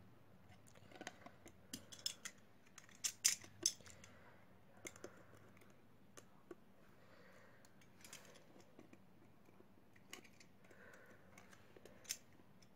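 Light, irregular clicks and taps of small tools against phone parts during a Vivo V3 screen replacement, loudest in a quick cluster about three seconds in.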